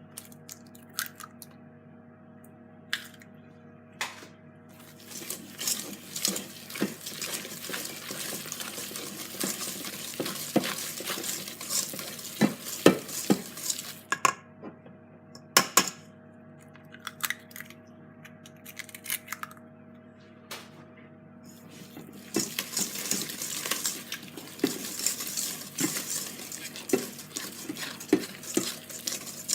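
Cake batter being stirred by hand in a bowl as eggs are added: a utensil scraping and clinking against the bowl in two long spells, with a few single sharp knocks between them.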